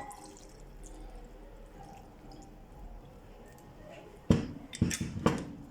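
Water splashing by hand, a few quick splashes a little over four seconds in, as pieces of costus root are washed.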